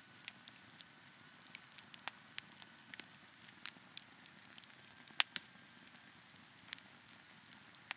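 Wood campfire crackling: irregular sharp pops and snaps over a faint hiss of burning, with one louder pop about five seconds in.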